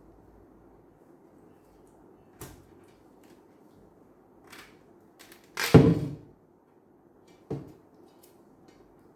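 Knocks and clunks of hard objects being handled: a few light taps, then a heavy clunk a little over halfway through and a shorter knock about two seconds later.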